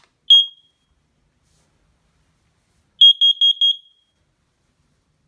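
Carbon monoxide alarm sounding on its test: one high beep, then about three seconds later a quick run of four beeps at the same pitch. Four beeps is the pattern a CO alarm uses for its carbon monoxide warning.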